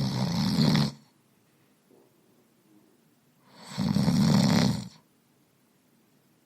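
A person snoring: one snore is under way at the start and ends about a second in, and a second snore lasting over a second comes about three and a half seconds in, with quiet between them.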